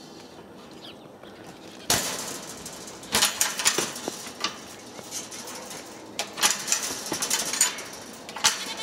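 Footsteps crunching through packed snow: quiet at first, then irregular crackles and scrapes from about two seconds in.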